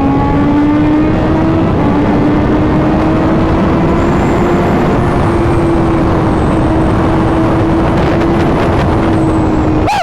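Honda CBR1000RR-R Fireblade SP's inline-four engine running at steady highway speed under loud wind rush. Its pitch rises slightly over the first couple of seconds, then holds level.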